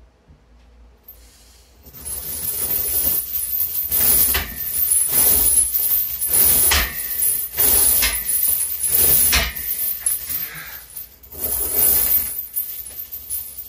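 Heavy steel chains hanging from a loaded barbell jangle and clank as they lift off and pile back onto the floor with each fast rep of a decline bench press. The clanks start about two seconds in and repeat roughly once every second and a quarter.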